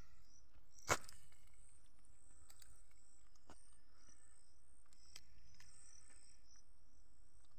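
Faint outdoor ambience with insects chirping, a high-pitched, steady repeating trill, and one sharp click about a second in.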